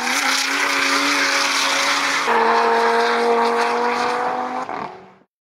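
A drift car's engine held at high revs with tyre squeal, then about two seconds in a cut to another car's engine running at a steady pitch on the track, fading out just before the end.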